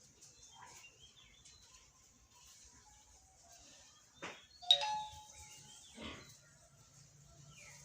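Steel rat trap being handled: a few knocks, and about four and a half seconds in a sharp metal clank that rings briefly.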